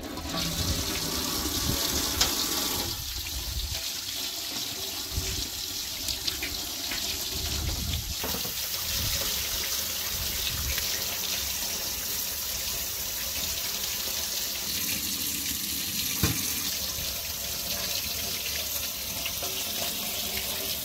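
Kitchen tap running into a stainless steel sink, the stream splashing over quinces being rinsed by hand. It comes on abruptly at the start and runs steadily, with a few light knocks from the fruit being handled.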